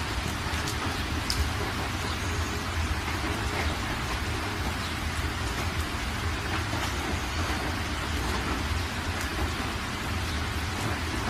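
Steady hissing noise with a low hum underneath and a few faint light clicks.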